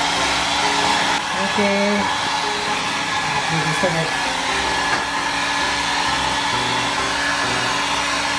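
Handheld electric hair dryer running steadily, a constant rush of air over a motor hum, blowing on a freshly bathed, towel-wrapped Shih Tzu to dry its coat.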